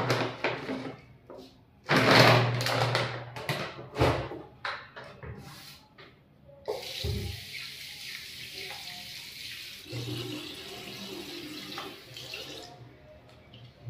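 Tap water running into a wash basin for about six seconds, starting near the middle and cutting off near the end. Before it come several loud rustling and clattering handling sounds as detergent powder is tipped from a plastic packet into a mug.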